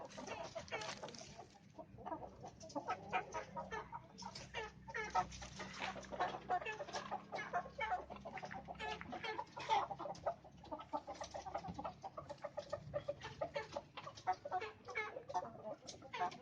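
Chickens clucking continuously, many short calls following and overlapping one another.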